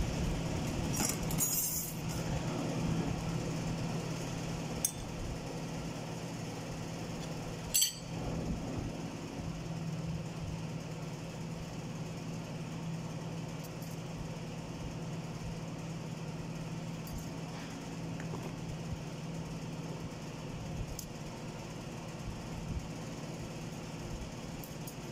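Automatic-transmission parts being handled: scattered metallic clinks of clutch plates and rings set down and picked up. There are a few in the first two seconds, one about five seconds in and the sharpest a little before eight seconds, all over a steady low workshop hum.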